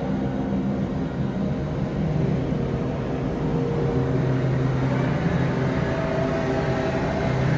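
Steady low rumble with several held low hums, growing slightly louder about two seconds in.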